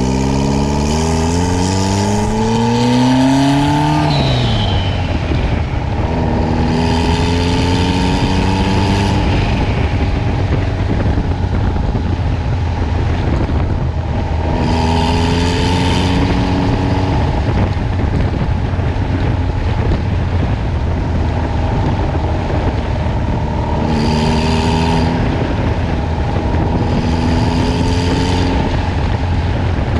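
Turbocharged Honda Civic four-cylinder engine pulling on a street drive: the pitch climbs for about four seconds, then drops with a brief falling turbo whistle as the throttle closes, followed by several shorter pulls. The turbo and engine sound healthy, and the front wheels make no rubbing noise.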